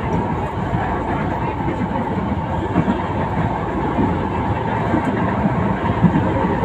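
LRT Line 1 light-rail train running along the elevated track, heard from inside the car: a steady rumble of the wheels and running gear.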